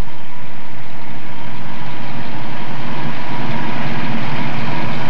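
1970 Ford Mustang Boss 302's V8 engine running steadily, with an even pulsing exhaust note.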